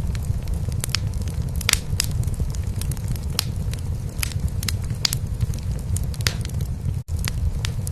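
A cat purring steadily beneath the crackle of a wood fire in a fireplace, with frequent sharp pops. The sound drops out for an instant about seven seconds in.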